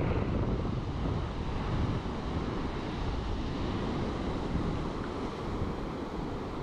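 Ocean surf breaking and washing up over the sand in a steady rush, with wind buffeting the microphone.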